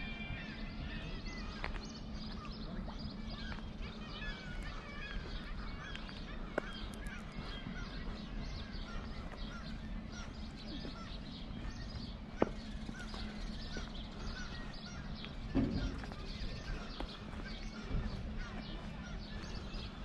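Many seabirds calling over the harbour, a dense chorus of short squawks and cries, over a steady low hum, with a few sharp knocks.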